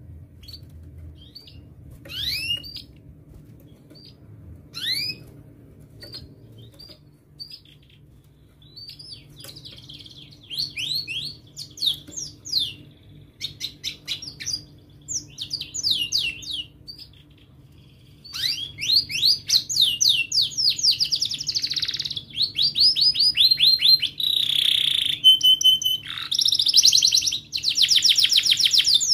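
Domestic canary singing. For the first half it gives scattered short, high, rising chirps. From about eighteen seconds in it breaks into a loud, continuous song of fast rolling trills.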